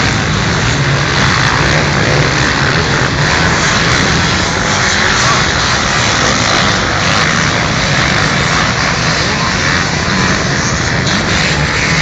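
A pack of motocross motorcycles racing up the dirt track, many engines revving together in one loud, steady buzz.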